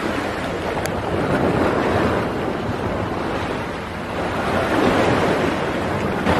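Sea waves washing against a rocky shore, swelling and easing, with wind buffeting the microphone. There is a brief sharp sound near the end.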